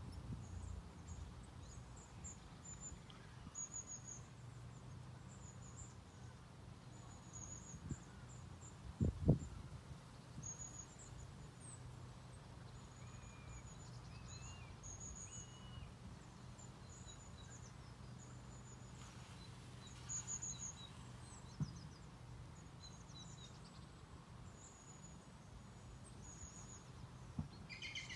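Small birds chirping in short, high repeated notes over a faint, steady low background hum, with a dull thump about nine seconds in and two softer knocks later.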